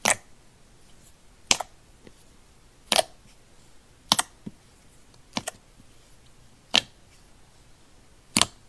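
Glittery slime making sharp clicking pops as it is stretched, folded and squeezed by hand, about seven crisp pops spaced roughly a second and a half apart.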